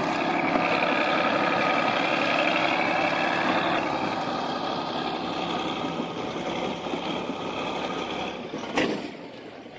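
Heavy machine's diesel engine running steadily, with a whining pitched tone over it. It grows fainter after about four seconds, and there is one sharp knock near the end.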